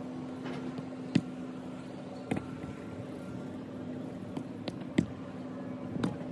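Soccer ball struck by a foot: four sharp thuds in two pairs, each pair a louder kick followed about a second later by a softer touch, the ball sent up and trapped on the laces. A steady low hum runs underneath.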